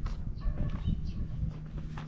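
Suzuki DR350 single-cylinder four-stroke engine running at a lumpy idle, turning into a steadier hum about three-quarters of the way through.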